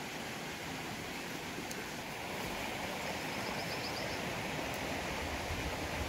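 Steady outdoor rushing noise, with a faint short run of high chirps about halfway through and low rumbling near the end.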